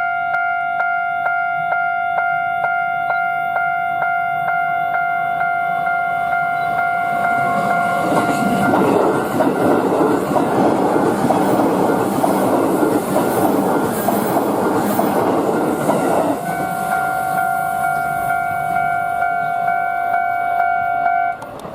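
Level crossing bell ringing with a steady repeating electronic chime while an E233-series electric train passes. The wheels clatter over the rail joints from about eight seconds in for roughly eight seconds. The bell stops just before the end.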